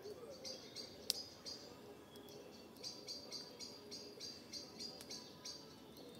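A bird calling with a short high note repeated about three times a second, with a single sharp crack about a second in.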